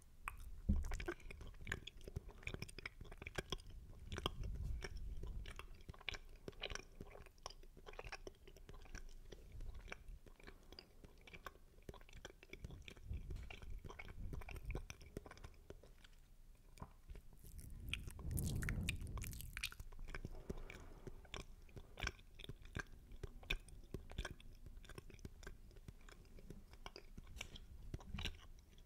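Close-miked wet mouth sounds for ASMR spit painting: a dense, irregular stream of spitty lip and tongue clicks and smacks. A few dull low thumps rise above them about a second in, around four seconds and again near the middle.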